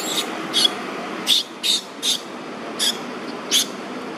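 Baby long-tailed macaque giving six short, high-pitched squeaks at irregular intervals over a steady low background hum.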